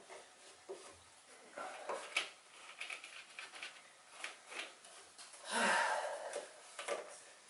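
Hands wiping and handling parts in a diesel pickup's engine bay: scattered light clicks and knocks with rubbing. A louder rough rubbing sound comes about five and a half seconds in.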